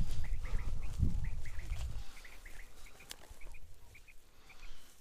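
Common quail calling again and again in short chirps, in twos and threes, over a low wind and handling rumble on the microphone for the first two seconds. One sharp click about three seconds in.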